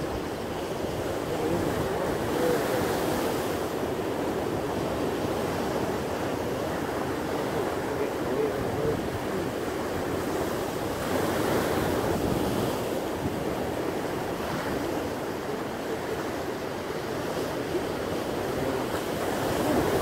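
Rough sea surf breaking and washing over rocks close by, a continuous rushing wash that swells louder a few times as waves break, with wind buffeting the microphone.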